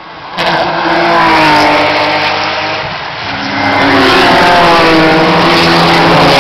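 Several touring race cars passing close one after another at full racing speed. A first engine note comes in suddenly and falls in pitch, then a second wave of several engines builds about four seconds in and stays loud.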